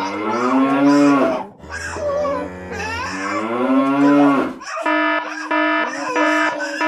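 Cow mooing twice: two long, drawn-out moos, a stock iMovie sound effect. About five seconds in, an electronic alarm starts sounding in repeated pulses of a buzzy tone.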